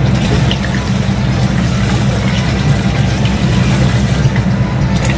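Water poured in a steady stream from a stainless steel kettle into a large pot of meat and broth on the stove, over a steady low hum.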